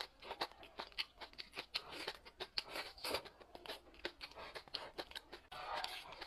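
Close-miked eating: irregular crunching, chewing and lip-smacking sounds in quick succession.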